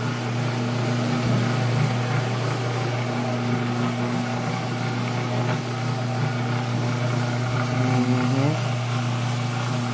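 Rotary floor machine with a solution tank running steadily as its brush agitates carpet, giving an even low motor hum.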